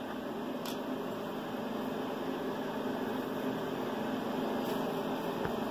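Steady low hum with hiss, like a fan or ventilation running, and one faint light tick about a second in.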